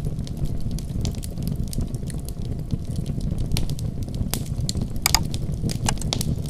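Wood fire burning in a fireplace: a steady low rumble under frequent sharp crackles and pops, with a few louder pops about five seconds in.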